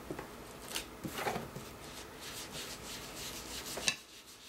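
Foam pad of a hand-held ink blending tool rubbed in repeated short strokes across paper-covered chipboard: a soft, scratchy swishing. A single sharp click sounds near the end.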